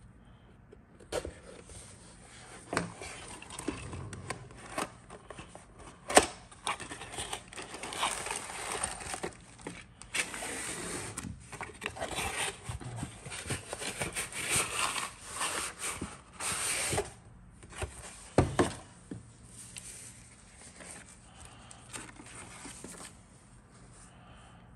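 Cardboard kit box being handled and opened, and the paper sheets inside pulled out: irregular rustling, scraping and crinkling of cardboard and paper, with a couple of sharp knocks against the box.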